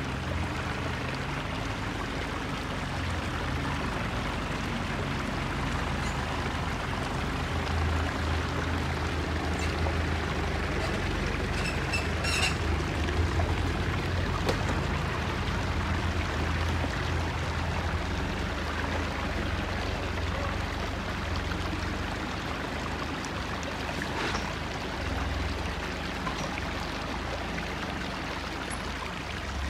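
Jeep Wrangler's engine running at low revs as it crawls over a rock ledge, a low rumble that rises and falls, over the steady rush of a flowing stream. A few short knocks about twelve seconds in.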